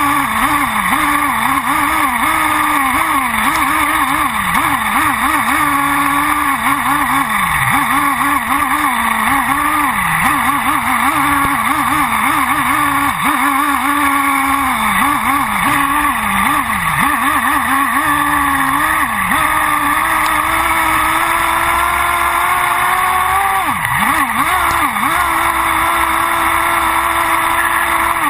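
Thunder Tiger EB4S3 nitro buggy's OS V-Spec 3.5 cc two-stroke glow engine screaming at high revs, heard close up from on board. The pitch drops and climbs again over and over as the throttle is worked, then holds high and steady on a long run in the last third, with a couple of quick dips near the end.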